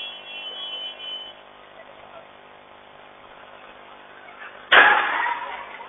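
Sudden loud crash of a car and a minibus colliding, about three-quarters of the way in, fading over about a second, heard through a security camera's thin-sounding microphone over low street noise.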